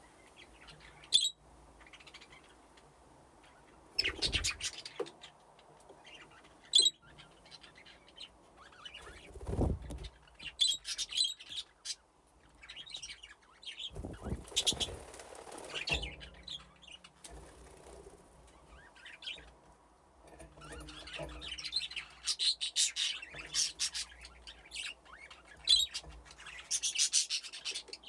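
A flock of budgerigars chirping and chattering in short high calls, sparse at first and much busier in the last third. Two sharp clicks stand out, about a second in and near seven seconds, with a few brief low rushes in between.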